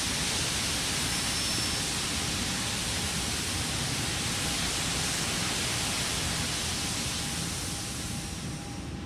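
A steady, even rushing hiss with a faint thin tone beneath it; it cuts off suddenly at the end.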